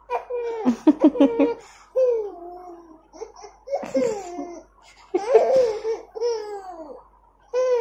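A young child laughing: a quick run of short laughs about a second in, then several longer laughing calls that glide up and down in pitch.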